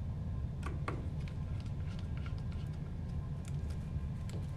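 Small Phillips screwdriver driving screws into the back of a printhead housing: a scatter of faint light clicks and ticks over a steady low hum.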